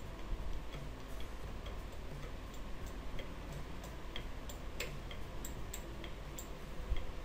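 Faint, irregular ticking clicks, a few a second, over a steady low hum and hiss.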